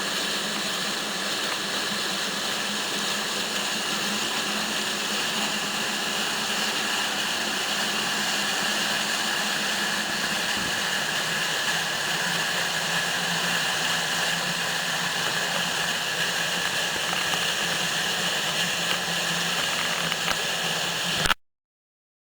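River water rushing in a steady, even roar that cuts off abruptly near the end.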